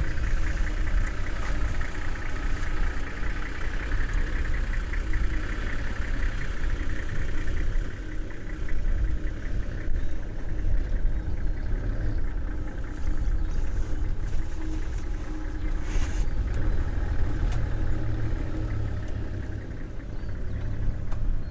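Vehicle engine idling, a steady low rumble with a faint regular knock in it, and a single sharp knock about three quarters of the way through.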